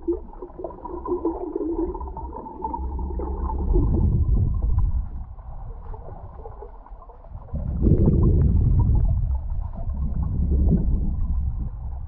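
Muffled underwater water noise picked up by a GoPro inside its waterproof housing as the towed submersible moves through the sea: a low rushing rumble with some gurgling, swelling and fading, loudest about four seconds in and again about eight seconds in.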